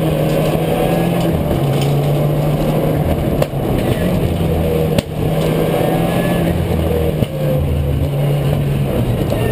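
Rally car engine running hard, heard inside the stripped, caged cabin, with tyre and road noise. Three brief breaks in the engine note, each with a knock, come about three and a half, five and seven seconds in.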